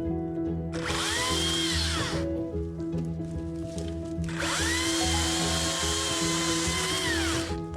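Chainsaw revved up to cut twice: a short burst about a second in, then a longer one of about three seconds from about four seconds in, each rising in pitch and dropping off at the end. Background music with held notes plays underneath.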